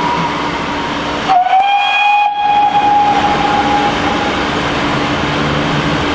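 Steam whistle of GWR 6400-class pannier tank No. 6430 gives one long, steady blast starting about a second in and fading out about three seconds later. It is heard over the steady noise of the steam locomotive.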